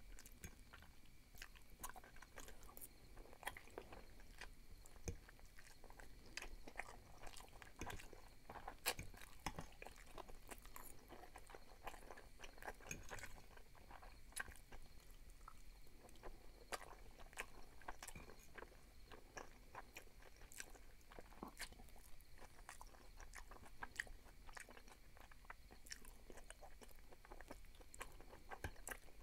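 Close-miked chewing of soft fettuccine in tomato sauce, with many small irregular wet mouth clicks and smacks.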